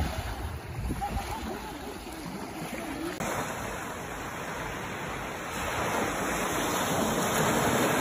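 Sea waves and surf: wind over choppy water with wind buffeting the microphone, then after an abrupt change about three seconds in, small waves washing up on a sandy beach in a steady rush.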